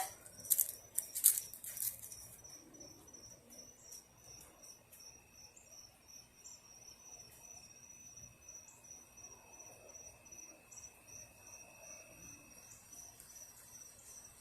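Crickets chirping in a steady high-pitched trill, with a second, lower trill joining about five seconds in and fading out near the end. A brief rattling clatter of sharp clicks comes in the first two seconds and is the loudest sound.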